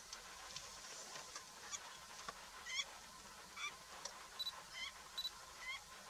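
Flamingos calling: short, repeated calls, about one or two a second from a couple of seconds in, faint over a steady background hiss.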